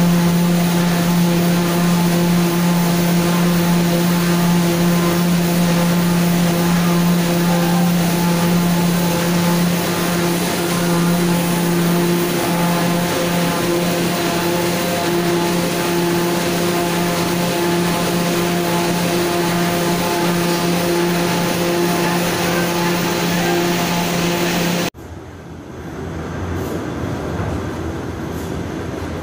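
Automatic corrugated board-making machine running: a steady mechanical drone with a strong low hum and a hiss of noise over it. About 25 seconds in it cuts off abruptly to a quieter, lower rumble.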